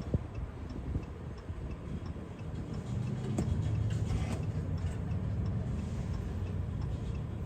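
Ram 1500 hazard-light flasher ticking at a steady pace, over a low steady hum.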